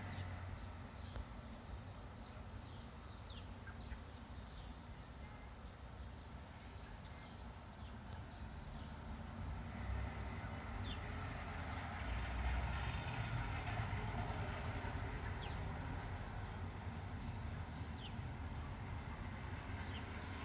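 A steady low rumble heard from the sky, growing louder about halfway through, with scattered bird chirps over it.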